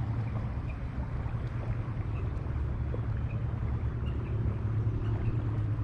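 Steady rush of river water, the river running at raised flows.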